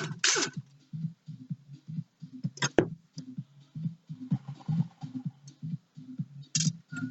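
Background music with a steady low beat. A sharp click comes about two and a half seconds in, and a short noisy burst comes near the end.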